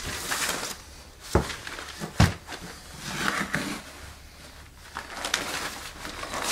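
Rustling and crinkling as a pink fibreglass insulation batt and its plastic wrapper are handled and pulled over a drop cloth, with two sharp knocks about one and a half and two seconds in.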